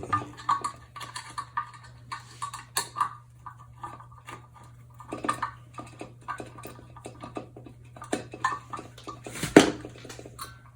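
Screwdriver loosening the screws on a ceiling fan's metal mounting parts: irregular small clicks, taps and scrapes of metal on metal, with one louder knock near the end.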